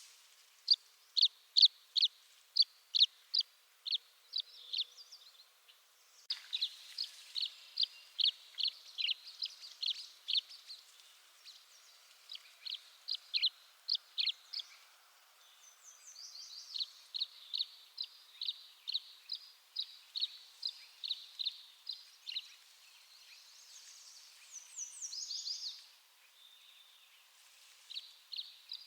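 Tree swallow calling: runs of short, high chirps, about two to three a second, in several bouts with brief pauses between them. A faster, higher twittering phrase comes near the end.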